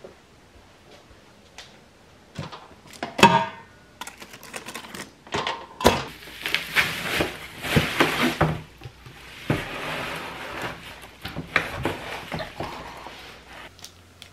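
Handling of packaging while unpacking: plastic bags and wrappers crinkling and rustling with cardboard rubbing and small knocks, dense from about four seconds in until shortly before the end. A single sharp knock with a short ring comes about three seconds in.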